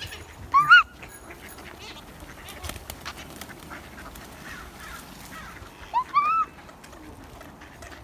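A feeding flock of gulls and mallard ducks calling, with two loud squawks that rise and then fall, one near the start and one about six seconds in, over a steady chatter of fainter calls.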